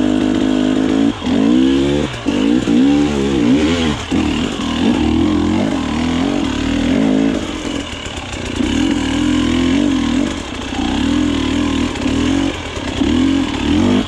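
KTM 300 XC-W's single-cylinder two-stroke engine revving hard under load on a steep climb. Its pitch swings up and down over the first few seconds, then it holds high revs with several brief throttle drops.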